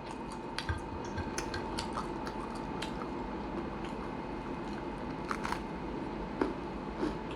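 A person chewing a sandwich close to the microphone: scattered small wet clicks and smacks of the mouth, over a faint steady hum.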